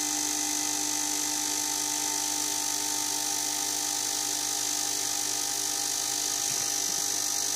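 Fuel injector firing 50 times a second at a 4 ms pulse width during a bench flow test, with the electric fuel pump running, making a steady electric buzz with a constant hum.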